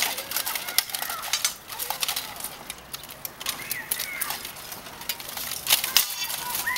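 Bastard swords clashing and plate armour clanking in an armoured sparring bout: a quick, irregular run of sharp metallic clanks, loudest near the end.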